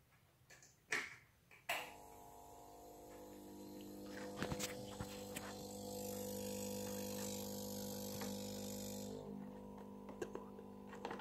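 Two clicks, then a Venus Aqua AP208 aquarium air pump, a small electromagnetic diaphragm pump, starts up about two seconds in with a steady hum. A hiss of air joins the hum and stops near the end, while the hum keeps going.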